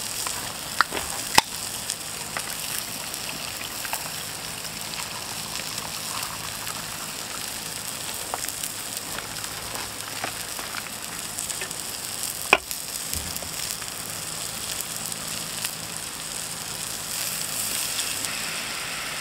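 Meat sizzling in a pan on a camp stove burner, a steady high hiss throughout. Two sharp clicks about a second in, as a beer can is opened, and one loud sharp knock later on.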